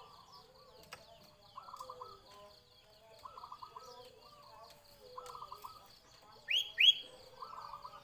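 Zebra dove (perkutut) cooing, in repeated short rippling phrases about every two seconds, over a steady insect trill. Near the end another bird gives two loud, quick rising chirps.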